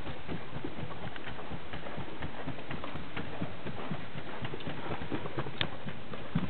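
Hoofbeats of a ridden Colombian gaited horse moving briskly over a soft dirt-and-sand arena floor, a quick, even patter of footfalls with a couple of sharper knocks near the end.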